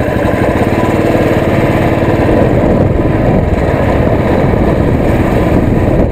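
Royal Enfield Classic motorcycle's single-cylinder engine running as the bike pulls away and rides on, accelerating up the road.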